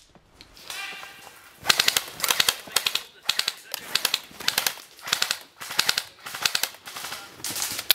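Hurried footsteps crunching through snow, a short crunch about three times a second from about two seconds in.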